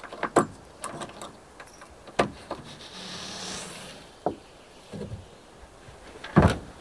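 The parallel pop-up roof of a pickup hardtop camper is handled and lowered, with scattered knocks and clicks and a longer sliding rub about three seconds in. A louder thump comes near the end.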